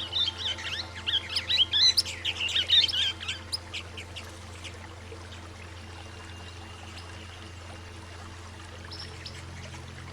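Swift parrots giving a rapid flurry of high, quick chirps that lasts about three and a half seconds, then thins to a few faint notes. A steady low musical drone and a water hiss run underneath.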